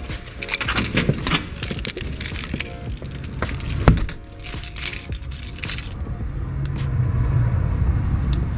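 A bunch of keys with a car key fob jangling and clinking as it is carried and handled, with handling knocks and one sharp knock about four seconds in. A steady low rumble comes in for the second half.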